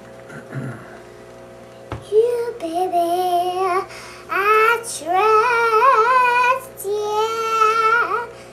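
A young girl singing in a high voice, a run of long held notes that waver and bend in pitch, starting about two seconds in. A faint steady hum runs underneath.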